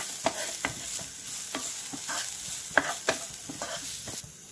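Chopped onion frying with ground spices in a pan, sizzling as it is stirred and scraped around with irregular strokes. The sizzle and stirring fall quieter near the end.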